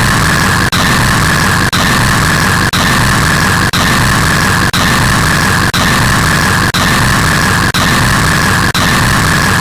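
Ear-splitting harsh static noise, held at full loudness and broken by a brief dropout about once a second, as though a short clip were looping.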